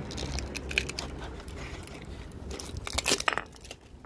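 Crinkling and clicking of stiff plastic as the clear protective cap is pulled off the bottom of a new oil filter, with a louder cluster of crackles about three seconds in.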